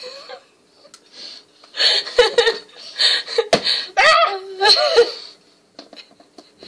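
Women laughing in several bursts, with one sharp knock about halfway through.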